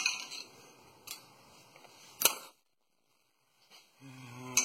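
Metal anti-rattle clip being worked off a rear brake caliper: a few light metallic clicks and clinks, the sharpest about two seconds in.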